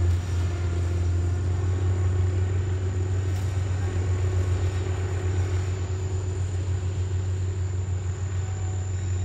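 Kubota DC105X combine harvester running while it cuts rice, a steady low diesel drone.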